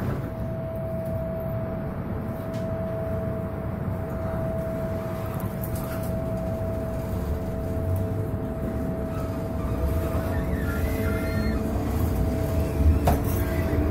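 MTR M-Train's GEC GTO chopper traction equipment giving a steady single-pitch whine as the train pulls away from a station, over a low running rumble that grows as it gathers speed, with a sharp click near the end.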